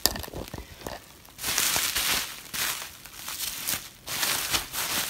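Plastic bag crinkling in several spells as it is handled to unwrap a toy, after a few light knocks in the first second.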